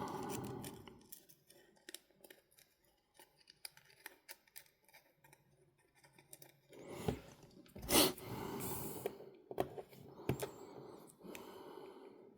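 Small sharp clicks and handling noises from working on a portable minidisc player by hand, with one louder click about eight seconds in.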